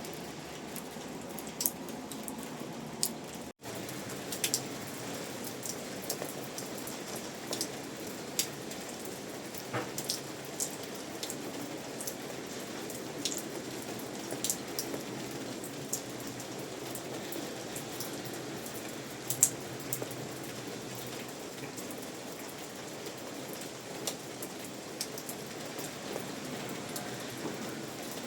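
Steady rain, with scattered loud single drops striking close by as sharp taps. The sound cuts out for a split second a few seconds in.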